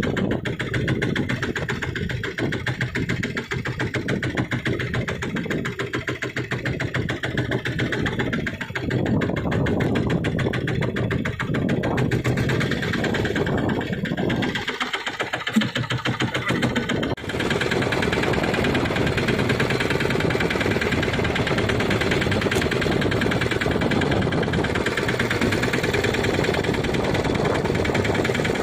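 Fishing boat's engine running steadily, a fast even chugging that grows steadier and slightly louder a little over halfway through.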